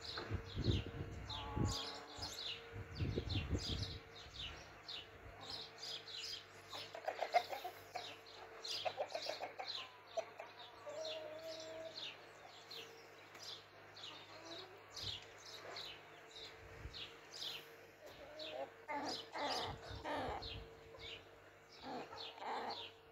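Chickens in a flock clucking softly, in short runs, while quick high chirps go on throughout. A few low thumps come in the first few seconds.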